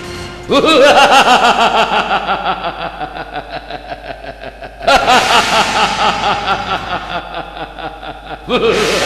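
A man's theatrical villain laugh, long runs of quick 'ha-ha-ha' pulses in three bouts: one starting about half a second in, another about five seconds in, and a third just before the end, each trailing off.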